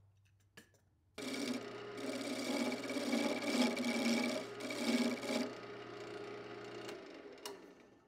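Wood lathe spinning a wooden stool-leg blank while a hand-held turning tool cuts it from octagonal to round. The cutting noise starts suddenly about a second in, rises and falls with the strokes of the tool, and dies away near the end.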